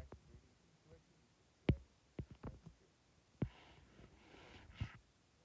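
Stylus tapping and scratching on a tablet's glass screen during handwriting: a series of sharp separate taps, then a soft scratchy stretch near the end.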